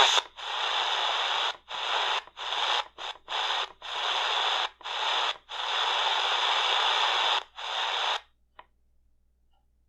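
Shortwave radio static: the C.Crane Skywave's speaker hissing on an empty frequency while the band is tuned between stations. The hiss cuts out briefly about nine times, then stops altogether a little over eight seconds in.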